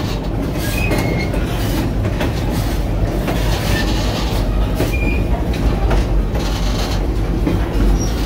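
Moving passenger train heard from the open platform between cars: a steady rumble of steel wheels on the rails with scattered clicks from the track, and brief high wheel squeals about a second in and again about five seconds in.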